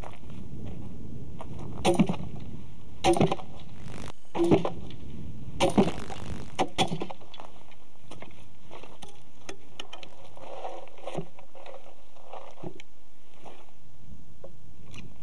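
Sledgehammer blows driving a wedge into a pine log to split it lengthwise. There are about five sharp knocks, roughly one a second, followed by fainter tapping.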